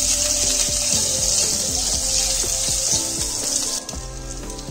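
Green chillies frying in hot ghee with cumin, mustard seed and chana dal: a loud, steady sizzle that cuts off suddenly near the end.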